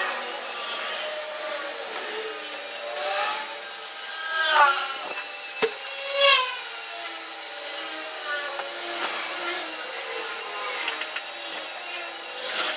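Microfiber cloth rubbing back and forth over a car's painted door panel, scrubbing off leftover sticker glue, with a few short squeaks about four to six seconds in.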